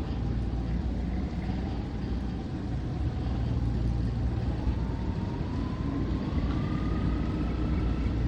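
Motor tugboat's engine running under load, a steady deep rumble, with a thin whine that climbs slowly in pitch through the second half.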